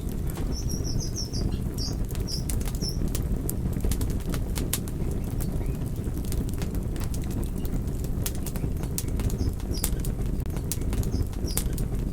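Campfire burning: a steady low rush of flames with frequent sharp crackles and pops from the burning wood, and a short run of high, squeaky chirps in the first few seconds.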